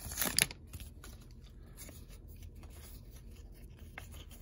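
Foil trading-card pack wrapper crinkling for about half a second, then soft rustling and faint ticks of cards being slid and fanned in the hands.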